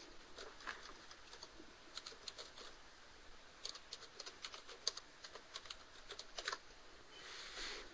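Faint, irregular clicking of computer keys, with a denser run of clicks about halfway through.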